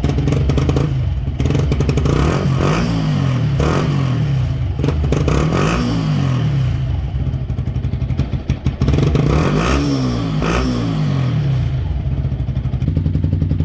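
Yamaha 125 cc single-cylinder four-stroke motorcycle engine revved again and again, its pitch rising and falling about once a second, then settling into a steady, evenly pulsing idle near the end.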